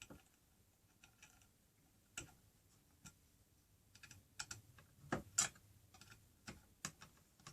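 Scattered light clicks and taps from handling a track saw's guide rails and an Allen key, irregular, with a louder pair about five seconds in.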